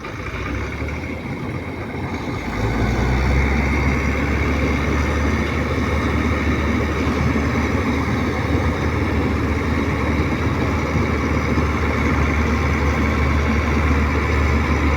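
Combine harvester engine running steadily, getting louder about two and a half seconds in and then holding at a loud, even level.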